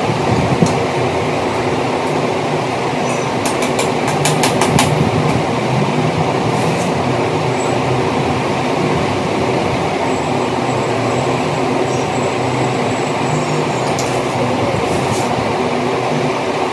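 Steady loud rumbling background noise with a faint hum. About three and a half seconds in comes a quick run of light clicks and taps, with a few more near the end, from the shoe rack's metal tubes and plastic joints being handled during assembly.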